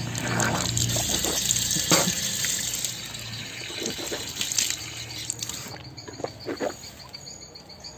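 Water running from an outdoor wall tap as a man rinses his mouth out under it. The flow stops about six seconds in, leaving crickets chirping.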